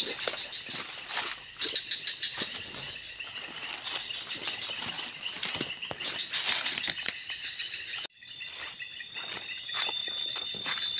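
Night insect chorus in tropical forest: steady high trilling from crickets and other insects, with rustling steps through undergrowth. About eight seconds in, the sound changes abruptly to a loud, high insect call pulsing two or three times a second.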